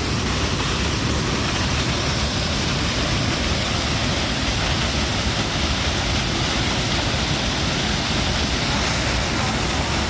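Large mountain waterfall running at high flow after heavy rain: a steady, loud rush of falling water churning into its plunge pool.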